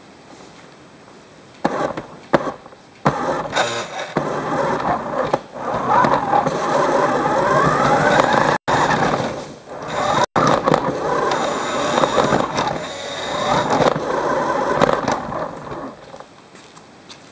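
Toy car's small electric motor whining and its wheels rolling on a hard floor, the whine rising and falling in pitch as it drives. It starts about two seconds in, cuts out sharply twice for a moment, and dies away near the end.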